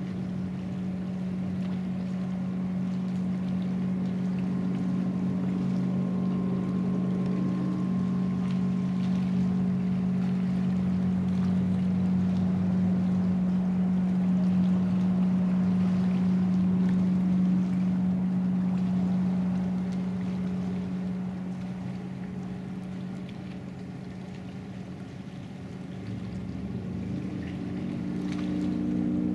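Motorboat engine running at speed as the boat circles on the lake: a steady hum that grows louder toward the middle, fades about two-thirds of the way through, and swells again near the end.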